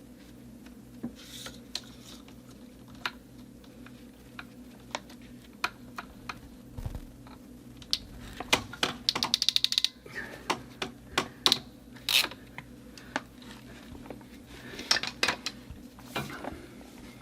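Scattered clicks and light knocks of hands handling PEX plumbing fittings and tools, with a quick run of rapid, evenly spaced clicks about nine seconds in. A steady low hum runs underneath.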